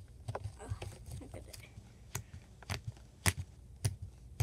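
Fingers poking soft purple slime made from Flarp noise putty and hand sanitizer, giving a run of short wet pops and clicks, about two a second.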